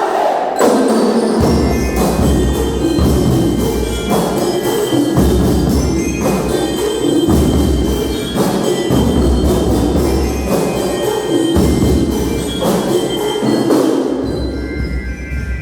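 Marching band playing: drums beating a steady rhythm with bell-like mallet percussion carrying a melody over it, coming in about half a second in.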